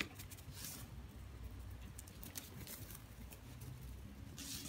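Light rustling and scattered ticks of a ferret and a dog scampering over dry grass, with a short rustle about half a second in and another near the end, over a low rumble.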